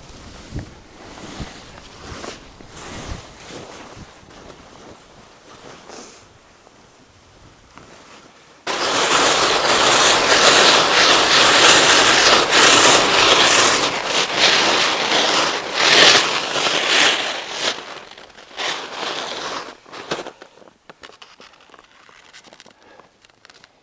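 Skis side-slipping down hard, crusty snow on a steep slope: a loud scraping hiss sets in suddenly about nine seconds in and lasts about nine seconds. Quieter, intermittent ski scrapes come before and after it.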